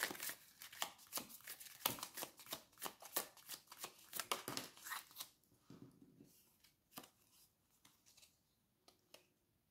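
Tarot cards being shuffled: a quick run of crisp card clicks for about five seconds, then a few scattered clicks and slides as the shuffling stops.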